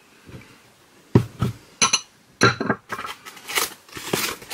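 Glazed bowls from a nesting bowl set knocked and clinked together several times as they are set down, with a short ring after two of the knocks. After that, wrapping is crinkled and rustled as the next bowl is unwrapped.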